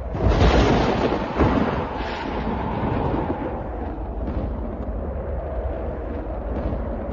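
Thunder: a sudden clap that cracks sharply again about a second and a half in, then rolls on as a long, low rumble that slowly fades.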